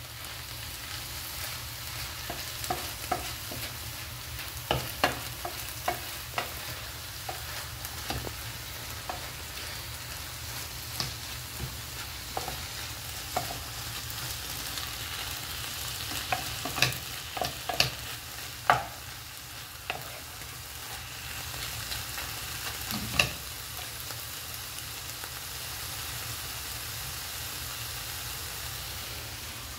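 Chicken, onion and peppers sizzling in a frying pan as the last of the liquid cooks off, with a wooden spoon stirring and scraping and knocking against the pan now and then. The stirring stops for the last several seconds, leaving only the steady sizzle.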